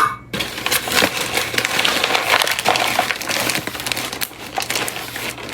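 Sugar bag crinkling and rustling as it is handled, a dense crackle of fine clicks that runs on without a break.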